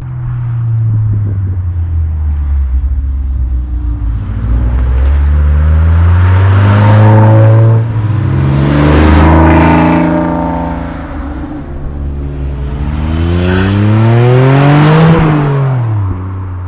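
Sports car engines accelerating hard past at close range, each revving up in pitch through the gears. There are several loud pass-bys, and the last one drops in pitch as it goes by.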